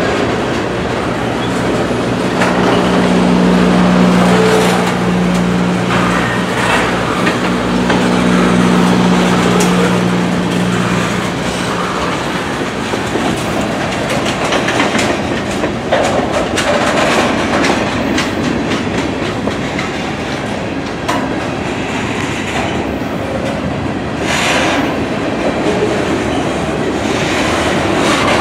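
Freight train of covered hopper cars rolling past at close range: steady wheel-on-rail noise with clickety-clack over the rail joints. A low steady hum sits under it for the first ten seconds or so.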